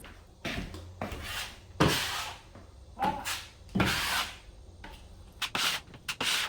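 Drywall knife scraping joint compound across drywall in a series of separate strokes, about one a second, with a few quicker strokes near the end.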